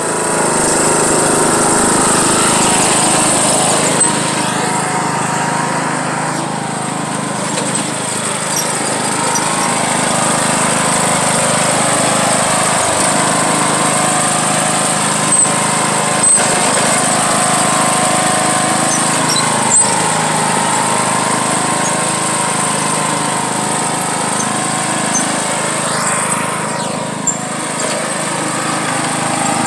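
John Deere riding lawn mower's engine running steadily as the mower drives across the grass, pulling a person towed behind it. There are a few brief clicks along the way.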